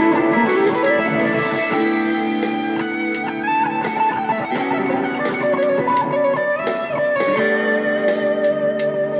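Electric guitar played through a Boss SD-1 Super OverDrive pedal, improvising in D major: overdriven held chords and single notes that change every second or so.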